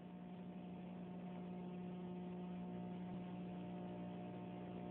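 A steady electrical hum with several overtones over a faint hiss, unchanging throughout.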